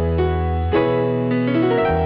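Background music: slow piano chords over a held bass, a new chord struck about once a second.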